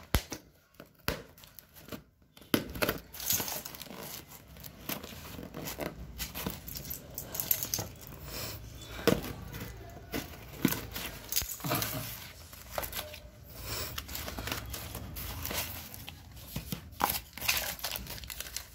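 Plastic and paper packaging of a phone box being crinkled and torn open, with sharp clicks and snaps of the box being handled. The rustling starts about two and a half seconds in, after a few isolated clicks.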